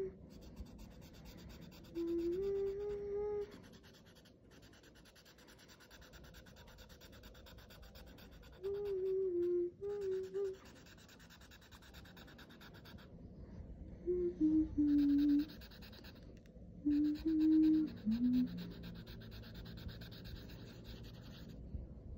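A person humming short phrases of a tune, four brief bursts with pauses between, the pitch stepping up and down. Faint rubbing fills the gaps.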